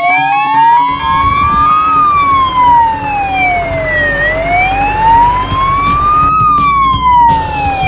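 Fire truck siren wailing, its pitch slowly rising and falling in a cycle of about four seconds. A low rumble comes in underneath about a second in.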